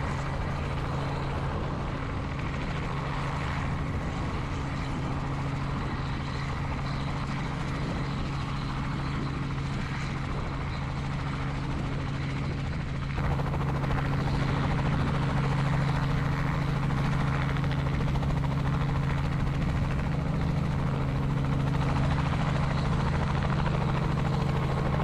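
Robinson helicopter's rotor and engine running steadily as it hovers low and settles onto the pad. It gets noticeably louder a little past halfway and stays that way.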